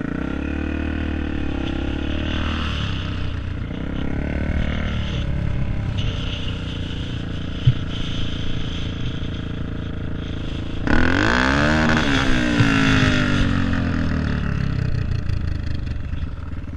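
Dirt bike engine heard from the rider's helmet while riding, revving up and down in pitch. About eleven seconds in comes a louder rev whose pitch climbs and then falls.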